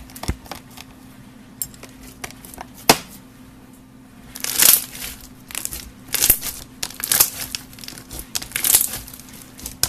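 Pink bead-filled slime being handled: a few sharp pops and clicks as a knife cuts through it, then dense crackling and crunching in bursts about once a second as hands squeeze and knead the beads, starting about four seconds in.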